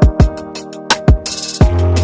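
Background music with a steady electronic beat: kick drum, deep bass and hi-hats.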